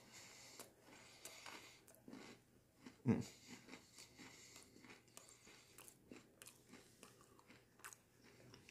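A person chewing a crunchy Oreo cookie close to the microphone: faint, irregular crunches and mouth clicks, with one louder low thump about three seconds in.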